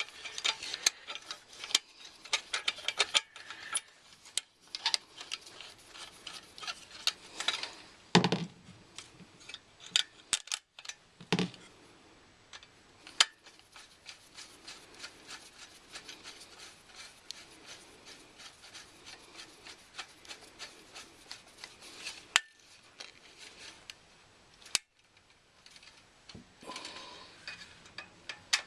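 Small metal clicks, clinks and scrapes of hand work on a furnace's sheet-metal parts and fittings during pilot thermocouple installation, dense for the first several seconds and sparser after, with a couple of duller knocks.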